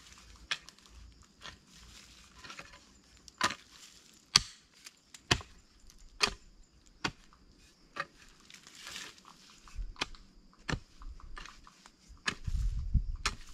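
A long-handled hoe chopping into dry forest soil and leaf litter, striking about once a second with crunchy scraping between strokes. A low rumble comes in near the end.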